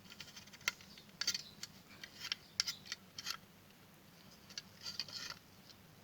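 Faint, scattered clicks and small rattles in short clusters as the opened sewing machine foot pedal and its parts are handled.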